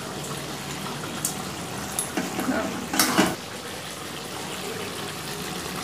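Chicken curry simmering in a steel karahi with a steady bubbling hiss. Around two to three seconds in, a metal spatula scrapes and clanks against the pan, loudest just after three seconds.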